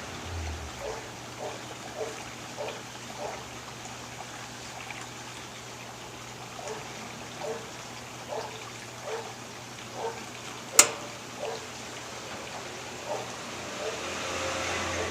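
Whirlpool 15 kg washing machine running, with water sloshing in the drum and a short squeak repeating roughly once a second. A single sharp click comes about two-thirds of the way through.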